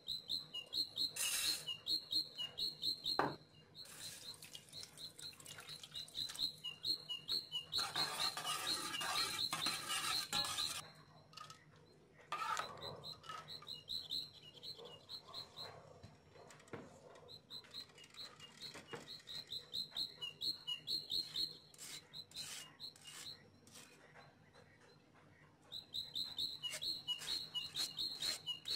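A bird chirping in quick runs of high, repeated notes, pausing every few seconds. About eight seconds in, a rushing noise lasts for roughly three seconds.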